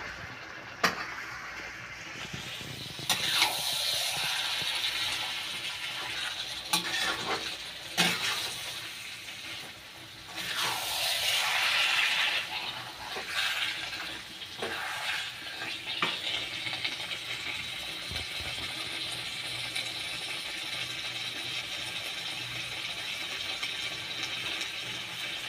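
Chicken pieces frying in thick onion masala in a kadai, sizzling, while a metal spatula stirs and scrapes the pan with scattered clicks and knocks. The stirring stops about two-thirds of the way through, leaving a steady sizzle.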